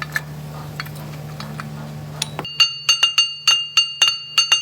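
Steady low hum with scattered light clicks; then, about halfway in, rapid metal-on-steel hammer blows start, roughly three a second, each leaving a clear bell-like ring.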